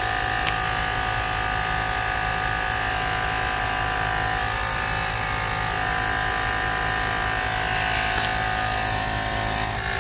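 Small 12-volt portable air compressor running with a steady electric hum, pumping air through a jug of cigar smoke into the engine intake for a vacuum-leak smoke test.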